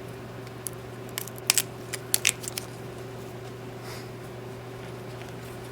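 Wrapping being torn open and crinkled off HP 950/951 ink cartridges: a quick cluster of sharp crackles and snaps between about one and two and a half seconds in, over a steady low hum.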